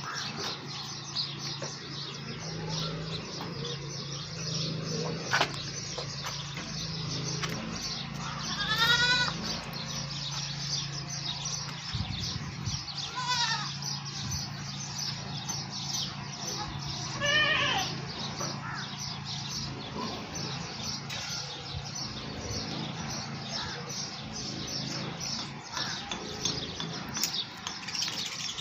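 Goats bleating three times, each call a loud quavering bleat, over constant high chirping of small birds and a steady low hum.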